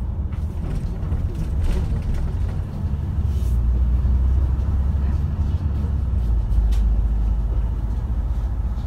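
Low, steady engine and road rumble of a moving bus, heard from inside, growing louder about three seconds in.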